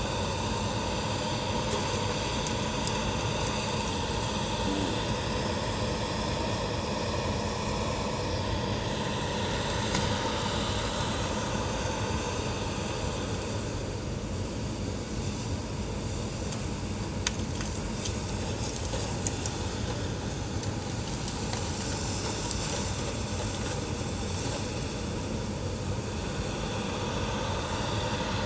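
Cat 568 forest machine's diesel engine running steadily while it works close by, with a few sharp knocks partway through.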